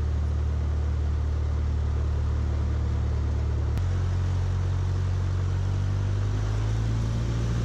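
Cessna 152's four-cylinder Lycoming engine and propeller running at low taxi power, a steady low drone heard inside the cockpit. About halfway through, the drone shifts abruptly to a different steady note.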